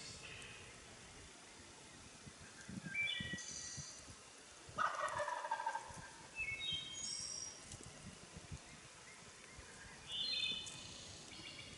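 Wild turkey gobbler gobbling once, loudest about five seconds in, with several shorter, higher bird calls around it.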